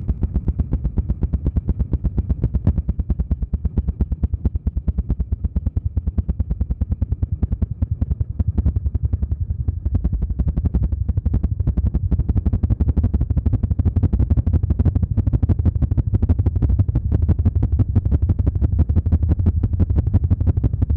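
ASMR 'helicopter' trigger: a fast, even low thumping of many beats a second, like the chop of helicopter rotor blades.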